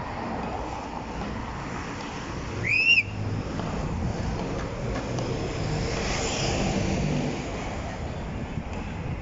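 Steady background of street traffic and wind on the microphone, with one short, high whistle that rises and then dips slightly about two and a half seconds in.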